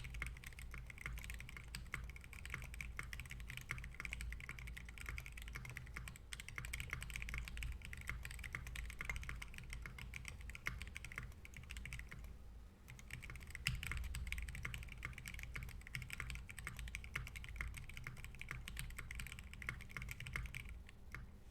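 Continuous typing on a custom Adélie mechanical keyboard with Novel Keys Silk Yellow linear switches and Kat Alpha keycaps, a steady run of key strokes with a brief pause about halfway through.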